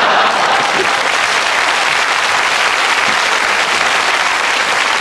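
Studio audience applause: a dense, even clapping that holds at a steady level.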